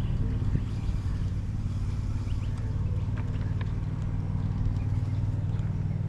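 Steady low engine hum from nearby motor traffic, with a few faint ticks over it.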